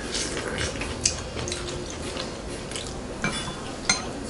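Cutlery clinking against dishes during a meal: a few light clinks, the last ones near the end ringing briefly.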